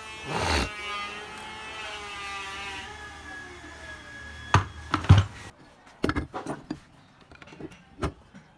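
A pitched tone with several overtones slides down and fades out over the first three seconds. Then the metal parts of a dismantled starter motor knock and clank on a workbench several times, in sharp separate hits.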